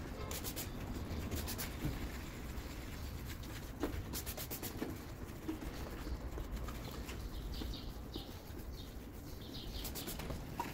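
Wet sanding of a plastic headlight lens with an abrasive disc on a hand-held stamper pad: soft rubbing and scuffing, with short bursts of scratchy clicks every few seconds.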